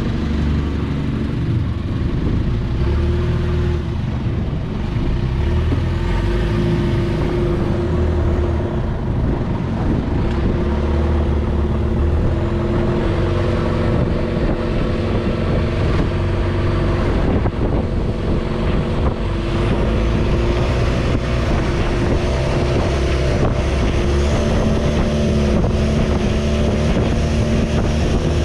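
Long-tail boat's engine running steadily at a constant pitch, with a slight change in its note about three-quarters of the way through.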